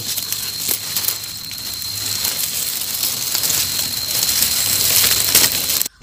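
Dry grass and leaves rustling and crackling as someone pushes through undergrowth, with scattered sharp crackles; it cuts off abruptly near the end.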